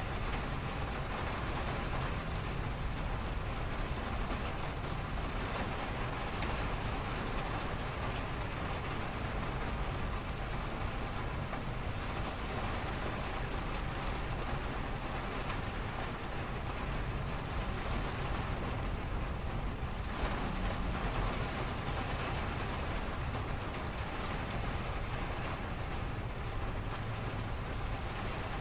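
Steady rain on a window, over a constant low rumble of freeway traffic.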